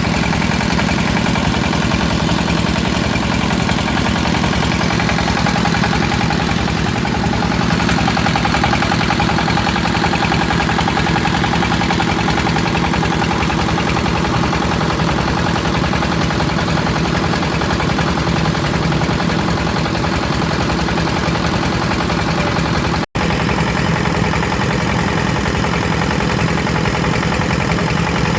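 Water pump's motor running steadily with a constant low hum while it pumps river water uphill. It cuts out for an instant near the end.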